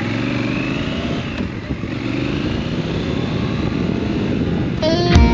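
Triumph Scrambler 1200 XC's 1200 cc parallel-twin engine running, its pitch rising and falling a little. Near the end, electric guitar music comes in over it.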